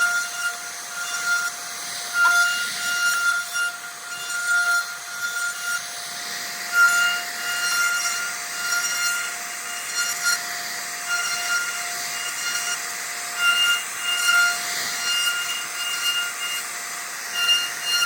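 CNC router carving wood: a steady high-pitched spindle whine over the hiss of the bit cutting. Its upper tones break in and out in short stretches.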